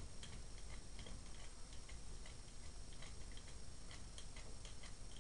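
Faint, irregular light ticks and clicks, several a second, over a steady low hum.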